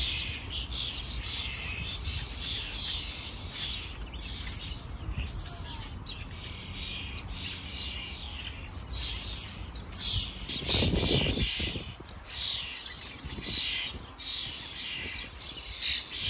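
Small garden songbirds chirping and chattering without a break in high, rapid notes, with a brief low rumble about eleven seconds in.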